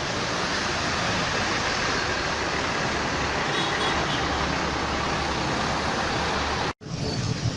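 Steady road traffic noise with no horn tune heard. It cuts out for an instant near the end, then resumes.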